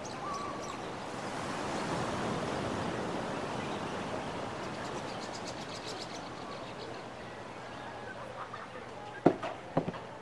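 Surf washing onto a beach: a wave swells over a couple of seconds and then slowly draws back. A short run of faint high ticks comes midway, and two sharp knocks, the loudest sounds, come near the end.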